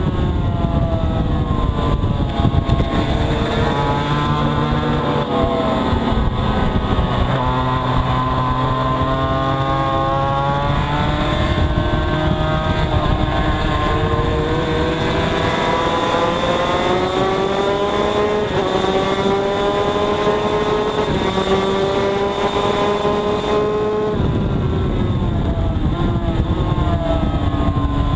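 Yamaha TZ250 two-stroke racing engine at full race pace. Its note climbs with the throttle, drops sharply on the downshifts into corners, then climbs again on the drives out.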